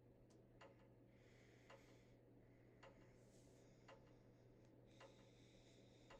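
Very faint ceiling fan sound on high speed: a steady low motor hum with a soft tick about once a second.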